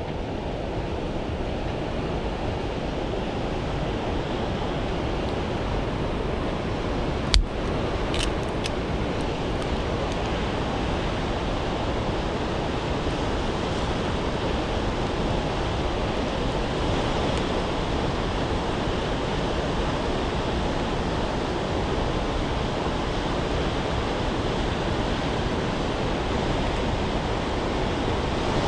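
Steady rush of mountain stream water, with one sharp, loud crack about seven seconds in and a few faint clicks just after.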